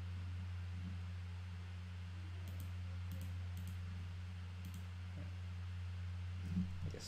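Several quick computer mouse clicks, some in pairs, over a steady low electrical hum.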